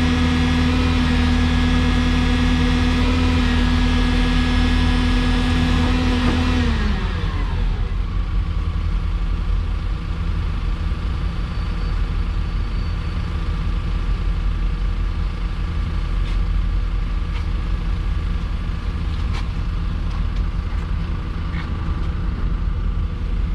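Yale forklift's diesel engine held at raised revs, then dropping back to a steady idle about seven seconds in. It is being run to heat the exhaust, because the NOx sensors are still too cold to start reading.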